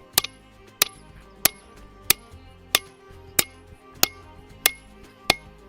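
Blacksmith's hand hammer striking hot steel on an anvil in a steady rhythm, nine blows at about one and a half a second, each with a short metallic ring: the flat peen drawing out the bit of an axe head.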